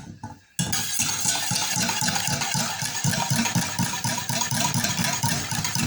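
Electric hand mixer switched on about half a second in and running steadily, beating eggs and cornstarch, with a regular pulsing as the beaters work the bowl.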